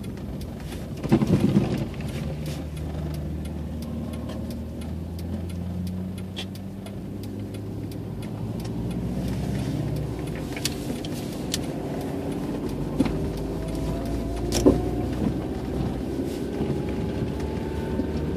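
Inside a car's cabin driving on a snow-covered road: the engine runs steadily under a low hum of tyre and road noise, with a brief loud clatter about a second in and a few sharp clicks later. Over the last few seconds a tone rises slowly.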